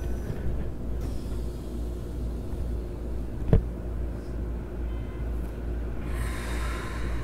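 Keikyu New 1000 series train standing at a station, heard inside the front car: a steady low hum from the car's onboard equipment, one sharp knock about three and a half seconds in, and a short hiss near the end.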